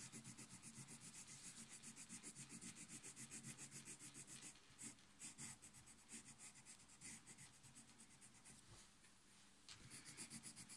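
Colored pencil scratching on sketchbook paper in quick, even back-and-forth shading strokes. The strokes become more irregular partway through, pause briefly about eight seconds in, then start again. Faint throughout.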